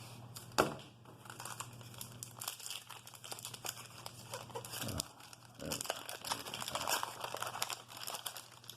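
Crinkling and tearing of a 1988 Topps wax-paper card pack being opened and the cards handled, with a sharp knock about half a second in.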